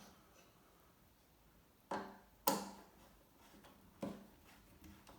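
Three sharp knocks with a few fainter clicks between them, the loudest about halfway through: parts and a screwdriver being handled against the washer dryer's casing as the screws are refitted.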